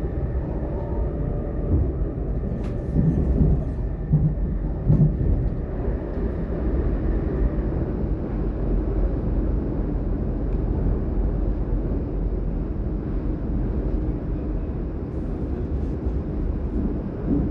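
DB Class 422 electric multiple unit running along the line, heard from inside: a steady low rumble of wheels and running gear, with a few sharp knocks in the first five seconds.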